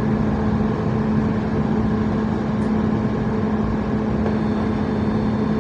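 Cabin noise inside a Boeing 737 MAX airliner rolling on the runway just after landing: a steady rush of engine and air noise with a low steady hum.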